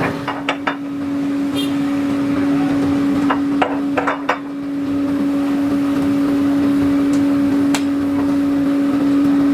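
Factory machinery running with a steady hum, with scattered sharp metal knocks and clinks: a cluster about half a second in, another around three to four seconds, and a single knock near the end.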